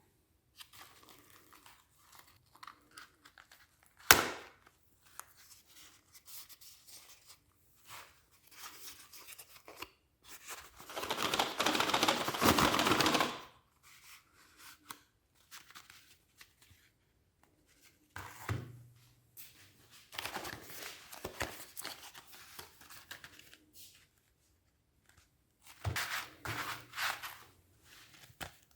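Kinder chocolate wrappers being torn open and crinkled in several separate bouts, the longest and loudest a tearing stretch near the middle. A single sharp knock comes about four seconds in.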